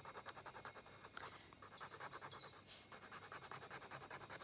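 Drawing pen scratching on sketchbook paper in quick, repeated hatching strokes, faint.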